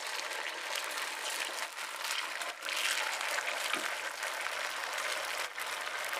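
Hot coconut oil sizzling in the wells of a paddu (guli appa) pan as spoonfuls of rice-and-curd batter are poured in: a steady, even hiss.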